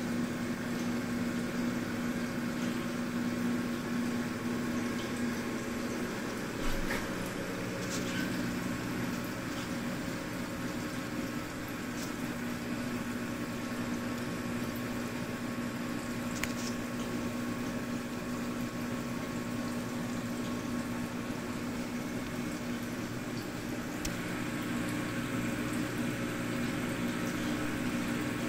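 Saltwater reef aquarium's pumps and filtration running: a steady motor hum over the even rush and bubbling of moving water, with a few light ticks.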